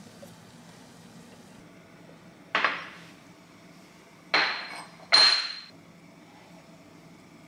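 Kitchenware clattering: three sharp knocks, the last two close together and each with a brief high ring.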